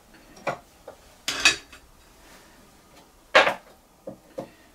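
Metal liner-puller bridge piece knocking and clinking against the alloy engine block of an AC 2 Litre as it is fitted in place: several short sharp metal knocks, the loudest about three and a half seconds in.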